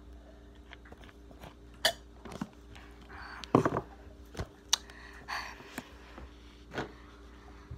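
Scattered clicks, knocks and short rustles of hands handling the recording phone close to its microphone, the loudest a dull thump about three and a half seconds in, over a steady low hum.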